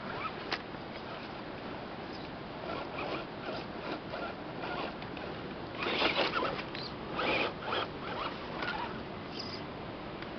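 Axial Wraith RC rock crawler's electric motor and geared drivetrain whirring in short, uneven bursts as it is throttled over rocks, the loudest bursts about six and seven seconds in, over a steady background hiss.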